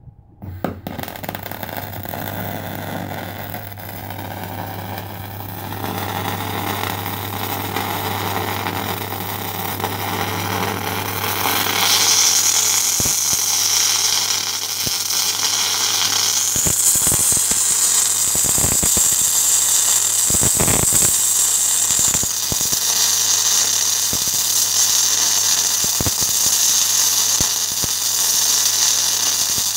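MIG welding arc on steel: a steady crackling hiss over a low hum, striking up just after the start and growing louder about twelve seconds in, with scattered sharp pops of spatter.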